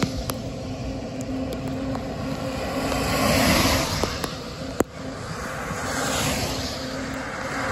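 Cars passing on a rain-soaked highway, tyres hissing on the wet road, over a low rumble of wind on the microphone; the hiss swells twice as vehicles go by.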